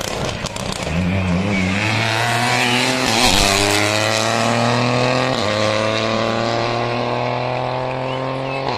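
Rally car engine at full throttle as the car passes close by and pulls away, rising in pitch, with one upshift about five seconds in before it climbs again.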